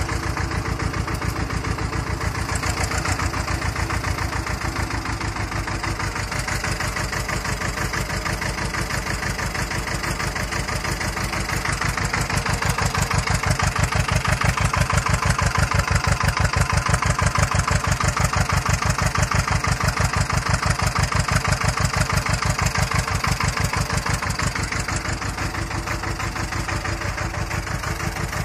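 Ursus C-330's two-cylinder diesel engine running steadily while the hydraulic lift is worked through its newly fitted distributor. It gets louder from about twelve seconds in and settles back down near the end.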